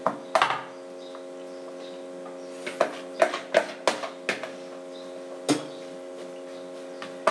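Scattered sharp knocks and clicks of kitchenware as meatballs are shaped by hand in a basin, a quick run of them in the middle and a single one later, over a steady hum of several tones.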